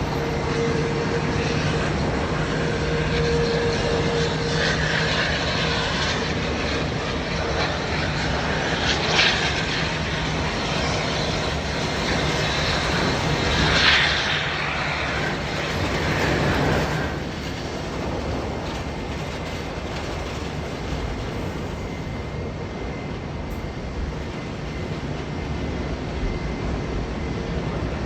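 Jet airliner engines, a steady broad rumble with a low hum, louder for the first two-thirds and easing a little after about seventeen seconds.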